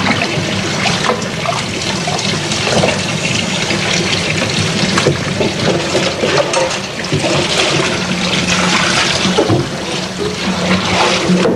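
Tap water running steadily into a sink during after-meal washing-up, with frequent clinks and knocks of dishes.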